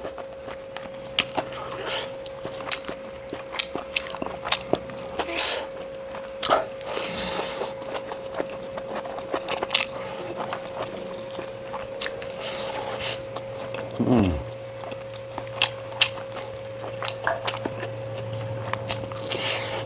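Close-miked chewing and biting of pork and bamboo shoot, with frequent wet mouth clicks and smacks. A steady faint hum runs underneath, and a short falling vocal sound comes about fourteen seconds in.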